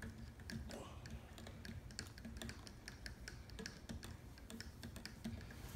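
Butter knife stirring inside a plastic water bottle: faint, irregular clicking and tapping, several clicks a second, as the blade knocks against the bottle's neck and the gum and dime inside.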